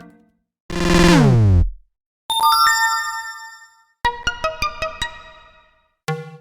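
Android notification sounds played one after another with short silences between them. First a brief tone sliding down in pitch, then a bright chime that rings out and fades, then a quick run of about eight bell-like notes.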